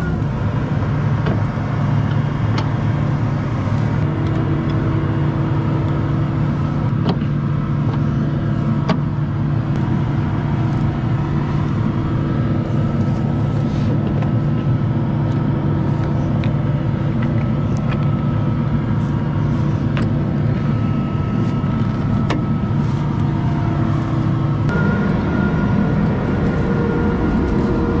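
A John Deere combine's diesel engine running steadily at close range, with a steady low hum and occasional light clicks. Its note shifts about 25 seconds in.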